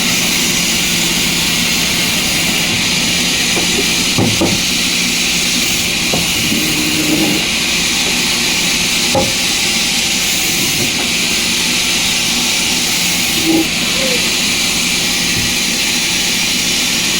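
Sawmill machinery running steadily, a constant hissing whir over a low hum, with a few short knocks of wood about four, nine and thirteen seconds in.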